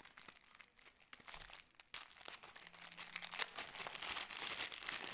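Clear plastic bag crinkling and rustling as a phone charger adapter is handled and pulled out of it: a run of fine crackles, louder in the second half.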